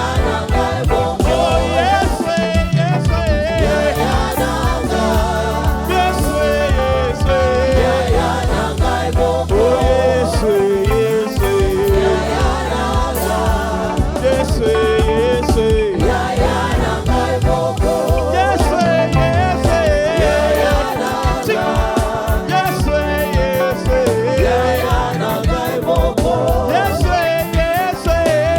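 Gospel praise and worship music: a worship team singing over a live band with a steady beat and a strong bass.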